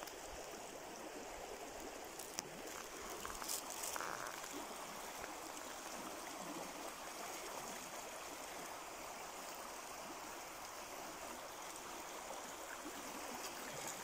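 Mountain river babbling: a steady rush of flowing water.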